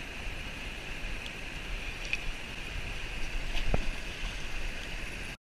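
Steady rush of river water, with a few faint ticks and one sharper knock late on; the sound cuts off suddenly just before the end.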